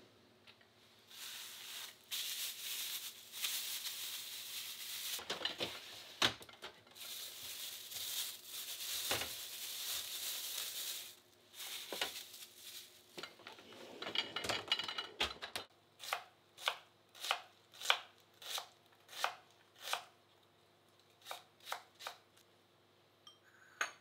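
Plastic produce bags and containers crinkling and rustling as vegetables are handled in the fridge's vegetable drawer. In the last third comes a knife chopping an onion on a cutting board, a steady series of sharp taps at about two a second.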